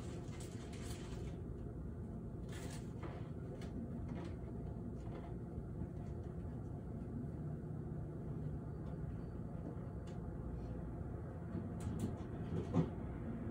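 Low, steady rumble of distant city traffic, with a few faint clicks and one short knock near the end.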